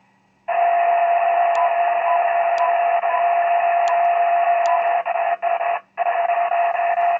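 VHF FM amateur transceiver's speaker: about half a second in, the squelch opens on a loud, hissy jamming signal carrying one steady tone. It drops out briefly twice near the end.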